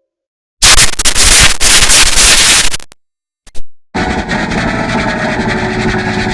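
An Android ringtone run through extreme audio effects, distorted and clipped into harsh noise: a loud burst of about two seconds, a short silence and a brief blip, then a held buzzing sound of many steady tones under the noise.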